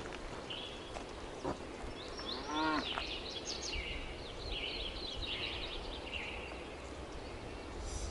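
A cow moos once, a short call that rises and falls about two and a half seconds in, over small birds chirping throughout.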